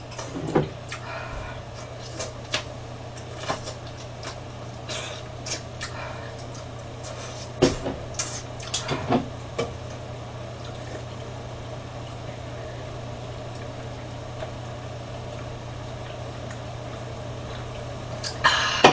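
Small clicks and mouth noises of someone eating and drinking from a can, scattered through the first half and clustered near the middle, over a steady low electrical hum; only the hum remains in the second half.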